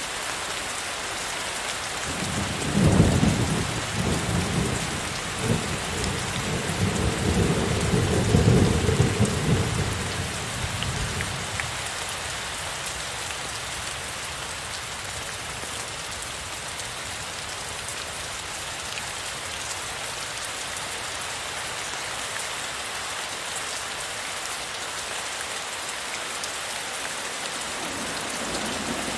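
Heavy rain falling steadily, with a long low roll of thunder from about two seconds in that peaks twice and fades out around ten seconds in; another rumble of thunder begins near the end.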